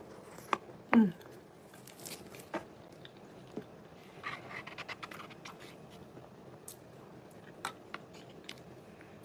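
Close-up eating sounds: a short vocal sound with a falling pitch about a second in, then light clicks and scraping of a fork against a paper food bowl as the last chili cheese fries are scooped up and chewed.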